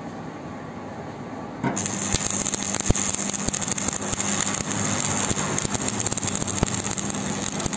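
Stick (arc) welding on the steel sheet of a combine harvester cutter bar: the arc is struck about two seconds in, then crackles and sizzles steadily as the bead is run, over a low steady hum.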